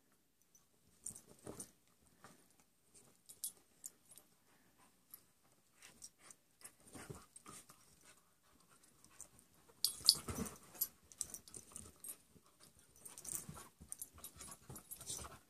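A rat terrier and a larger mixed-breed dog play-fighting on a blanket-covered chair: irregular bursts of scuffling and dog noises, loudest about ten seconds in and again near the end.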